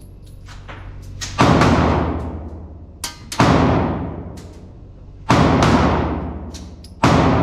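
Four handgun shots fired about two seconds apart, each followed by a long echoing tail.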